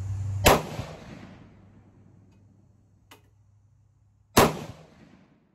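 Two gunshots from an AR-15 pistol fitted with a brass catcher, about four seconds apart, each trailing off over about a second. There is a faint click between them.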